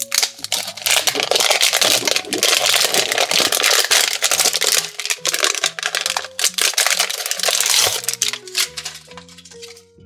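Plastic packaging crinkling and tearing in quick, dense crackles as a toy is unwrapped, dying away near the end, over light background music with a simple stepping melody.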